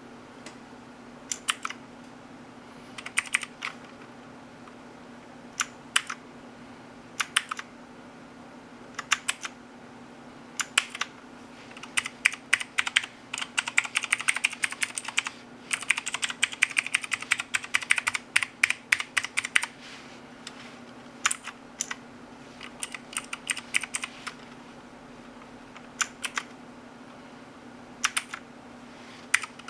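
Keys clacking on a MAXTILL TRON G10K mechanical keyboard: short clusters of a few presses, then a dense run of fast keystrokes in the middle, thinning out to scattered clusters again near the end.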